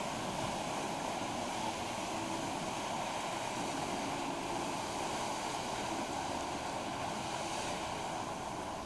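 Steady rushing noise of a passing paddle steamer and the water churned up by its paddle wheels.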